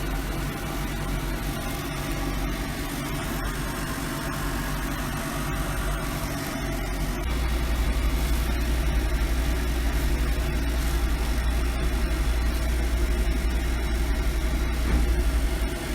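Steady mechanical hum of a running machine, with a deeper low rumble that comes in about seven seconds in and drops away near the end.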